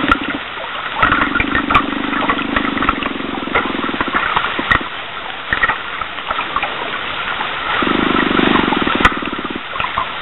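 A steady low hum at about 298 Hz comes and goes in three stretches: it stops just after the start, returns from about a second in to about four seconds, and again from about eight to nine and a half seconds. Underneath runs a crackling hiss with a few sharp clicks. The recordists take the hum for the call of an unknown animal, clearly biological and unlike a fish finder's signal.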